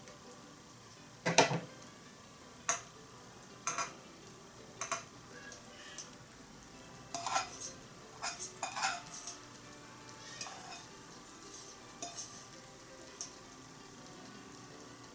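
A utensil knocking and scraping against a small iron pot at irregular moments, a few quick ones in a row about halfway through, as green onions are stirred into a simmering offal hotpot. A faint steady sizzle of the pot simmering runs underneath.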